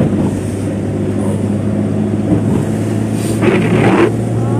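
Motor vehicle engine running with a steady low drone, joined about three and a half seconds in by a brief rush of noise lasting about half a second.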